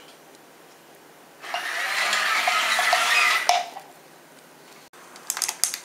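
Small DC gear motors of a plastic toy tracked rover whirring for about two seconds as it drives in reverse, starting about a second and a half in and stopping abruptly. A few light clicks near the end.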